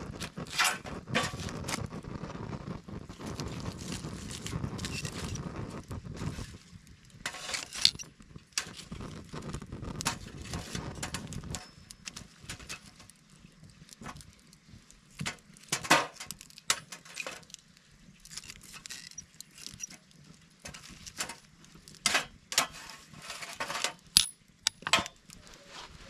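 Irregular sharp clinks and knocks of small hard objects being handled, over a low rumble that dies away about halfway through.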